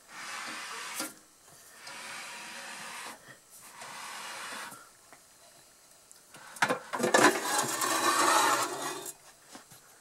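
Rubbing as hands move over the chrome body of a vintage Knapp Monarch Redi-Baker toaster oven, three times in the first five seconds. Then, about two-thirds of the way in, a louder, longer scraping rattle with clicks as its metal baking-tray drawer slides out on its runners.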